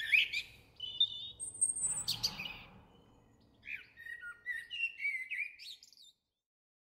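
Common blackbird singing: fluty, warbled phrases with higher twittering notes, a lull about three seconds in, then a second phrase from about four seconds. The sound cuts off abruptly about six seconds in.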